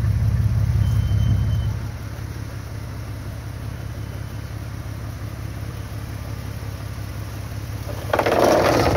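Jeep Cherokee XJ engine running at a low crawl: a steady low rumble that drops in level about two seconds in. Near the end a louder rough, rushing noise comes in over it.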